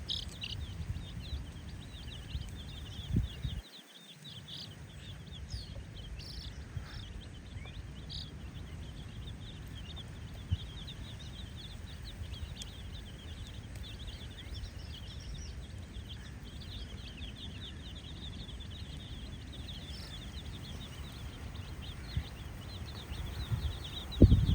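A crowd of baby chicks peeping continuously, many short high peeps overlapping, over a low rumble, with a sharp bump about three seconds in and another near the end.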